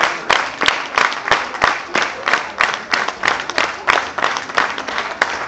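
A large crowd clapping in unison in a steady rhythm, about three claps a second, over a wash of general applause.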